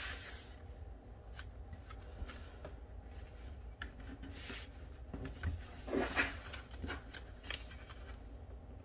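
Paper handling: a sheet of paper sliding and rustling as it is laid on a card file folder and smoothed flat by hand, with a few light taps and crinkles, the loudest about six seconds in.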